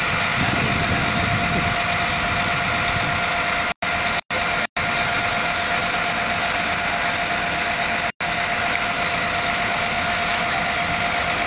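Idling buses running with a steady engine hum, ventilation hiss and a thin steady whine. The sound cuts out briefly four times, twice in quick succession near the start and once more later.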